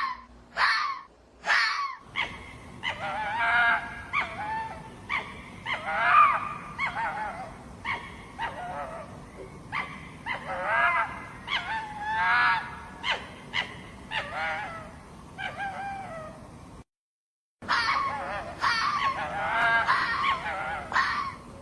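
Hoary fox giving runs of short, high-pitched yelping barks, often several in quick succession. The calls stop for a moment about three-quarters of the way through, then resume.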